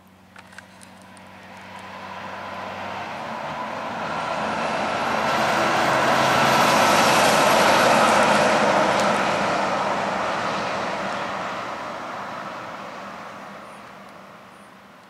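A road train with tanker trailers passes at highway speed. Its noise builds for several seconds, is loudest about halfway through, then fades steadily as it moves off down the road.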